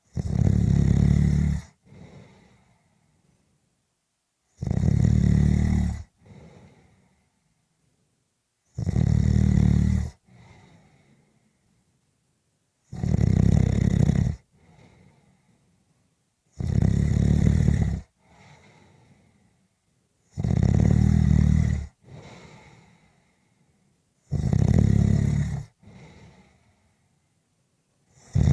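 A sleeper snoring in a slow, even rhythm: a loud snore about every four seconds, each lasting about a second and a half and followed by a fainter, shorter breath.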